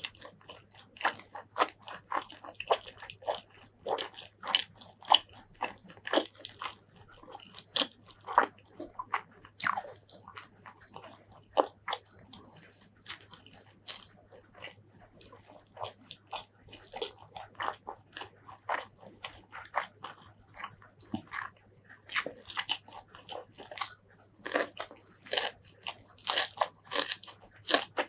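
Close-miked mouth sounds of a person eating pork curry with green eggplant and white rice: steady chewing and biting, a dense, irregular run of sharp wet clicks, several a second.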